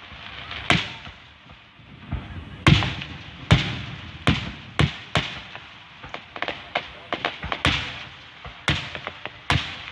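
Aerial fireworks exploding in a finale barrage: a string of loud booms, each with an echoing rumble, and a quick cluster of smaller crackling bangs in the second half.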